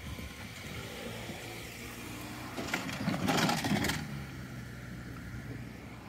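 A motor vehicle passing on the road, swelling up about two and a half seconds in, loudest around three and a half seconds, then fading, over a steady low engine hum.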